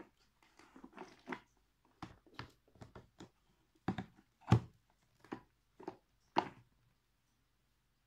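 Irregular plastic clicks, knocks and rattles, about a dozen of them, as hands handle the casing of a 1982 Hitachi CV-7405 Stowaway Mk1 cylinder vacuum cleaner. The loudest knock comes about halfway through. The cleaner's motor is not running.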